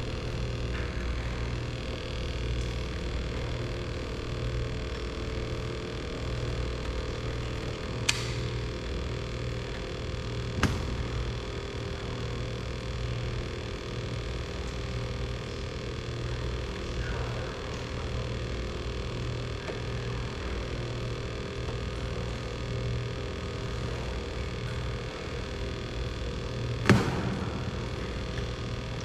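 A steady low mechanical hum with a few sharp clicks or knocks: one about eight seconds in, another a few seconds later and a louder one near the end.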